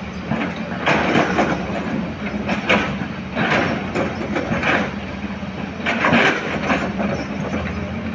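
Heavy earthmoving machinery running: a steady diesel engine hum with repeated irregular bursts of rushing, clattering noise about every second or so.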